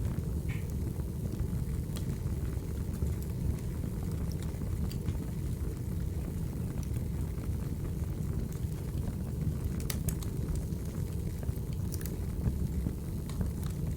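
Recorded wood fire ambience: a steady low rumble with scattered sharp crackles and pops, a few clustered about ten and twelve seconds in.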